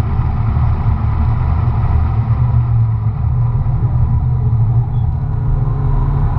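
McLaren MP4-12C's twin-turbo V8 running at track speed, heard from inside the cabin together with road and tyre noise, a steady low rumble.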